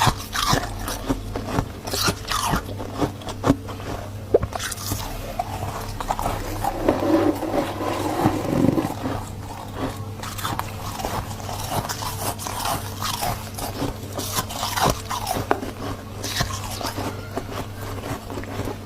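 Freezer frost being bitten and chewed close to the microphone: repeated crisp crunches and crackles.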